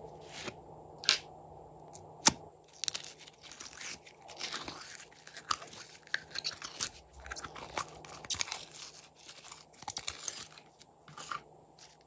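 Lid of a plastic slime jar twisted open, with two sharp clicks in the first few seconds, then gold glitter glossy slime pulled out of the jar and worked by hand, giving dense, irregular sticky crackling and popping.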